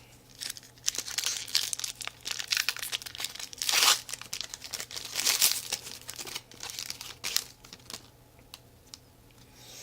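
Foil wrapper of a 2014 Topps baseball card pack being torn open and crinkled, in a run of irregular crackles that are loudest about four and five and a half seconds in.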